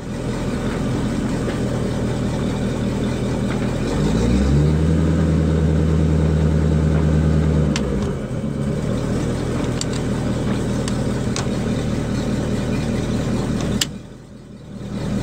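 Volvo Penta sterndrive engine of a 2003 Ebbtide Campione 210 running under throttle-lever control: it is revved up about four seconds in, held there for about three seconds, then settles back to idle. A sharp click near the end is followed by a brief drop in level.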